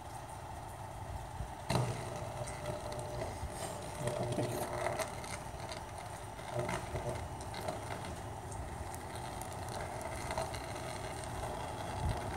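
Electrical arcing at a faulty utility pole, heard as irregular sharp crackles and snaps over a steady outdoor hum, with one louder snap about two seconds in.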